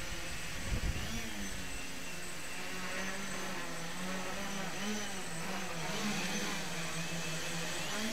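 Homebrew quadcopter's electric motors and propellers buzzing in flight, the pitch wavering up and down as the motor speeds change to hold and steer it.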